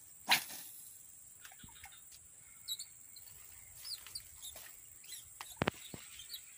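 Swampy pond-side ambience: a steady high-pitched insect drone with a few short bird chirps. A short, loud rush of noise comes about a third of a second in, and two sharp clicks come a little after five seconds.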